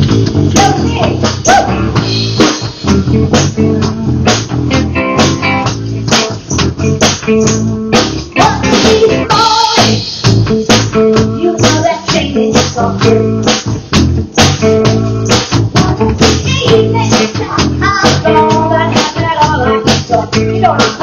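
A live rock band playing: a drum kit keeping a steady beat under electric guitar and bass guitar, with a woman's voice singing in phrases over it.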